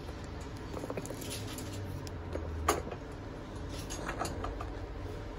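Handling noise as shop goods are picked up and moved: light clicks and rustles, with one sharper knock about two and a half seconds in and a few small clicks about a second later, over a low steady hum.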